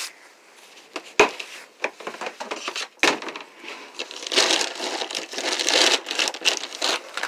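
Rustling and crinkling, with a sharp knock about a second in and a busier, louder run of crackling from about halfway through.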